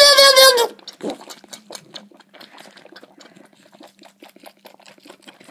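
Angora goat kid's loud, drawn-out bleat, which cuts off about half a second in. It is followed by rapid, irregular faint clicks and smacks of the kid sucking milk from a bottle nipple.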